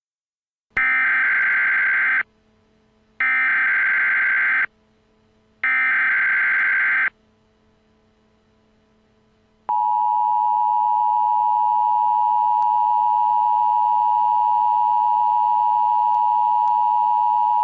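Emergency Alert System SAME header: three bursts of shrill digital data tones, each about a second and a half, followed a couple of seconds later by the EAS two-tone attention signal held steady for about eight seconds, the opening of a warning broadcast.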